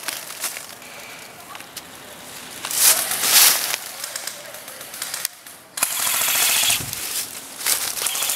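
Airsoft guns firing: sharp single pops scattered throughout, and a longer rapid full-auto burst about six seconds in.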